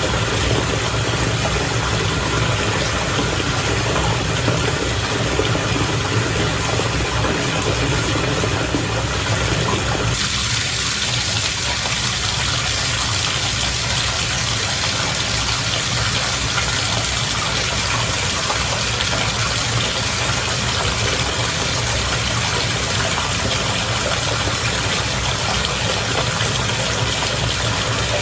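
Bath water bubbling and churning in a steady rush over a low hum. About ten seconds in it turns brighter and hissier.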